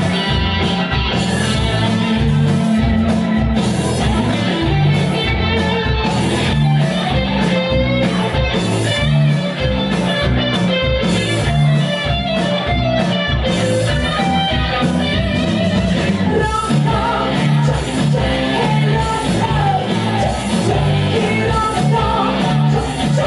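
A rock band playing live, with electric guitar and bass guitar over a steady beat. A woman sings over the band in the later part.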